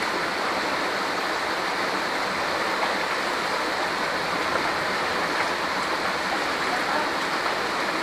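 Rushing water, a steady even noise with no breaks.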